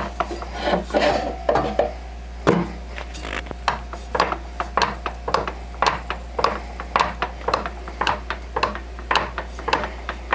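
Irregular metal clicks and clunks, a few a second, from the parts of a Shop Fox wood lathe being handled and locked as the headstock and tailstock are adjusted, over a steady low hum.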